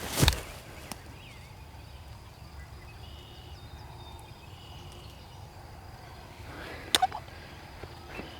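Outdoor field sound: a sharp knock just after the start and a quick pair of clicks about seven seconds in, over a steady low rumble with a few faint high chirps.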